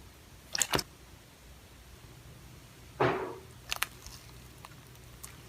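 Slime being handled quietly: a pair of soft clicks, then a brief swish about three seconds in, followed by a few faint clicks.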